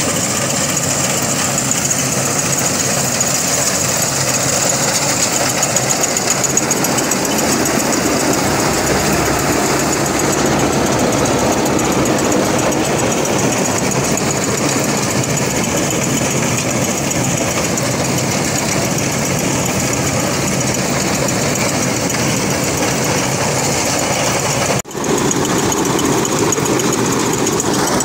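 Preet tracked combine harvester running steadily at close range, its engine and harvesting machinery working as it cuts ripe paddy. The sound drops out for a split second near the end.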